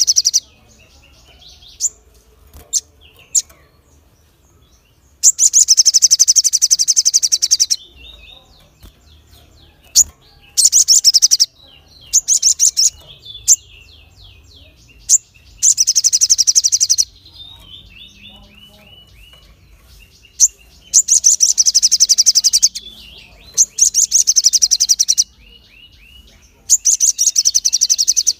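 Caged ruby-throated bulbul (sogon) singing: about seven loud bursts of very rapid, shrill, high notes, each lasting one to two and a half seconds. Between the bursts come quieter, short falling chirps.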